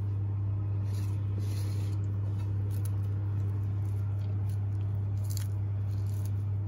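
A steady low hum throughout, with a few faint soft rustles and clicks as chopped vegetables are dropped by hand onto a bowl of yogurt.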